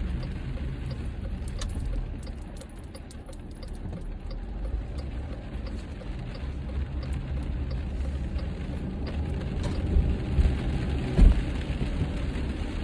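Car interior at highway speed in rain: a steady low rumble of tyres and engine, with rain hitting the windshield and a few sharp ticks. A brief thump about eleven seconds in is the loudest moment.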